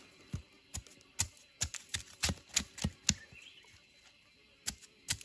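A string of sharp, crisp snaps, about a dozen in quick irregular succession, then a pause and a few more near the end: crisp young plant stems being snapped off by hand.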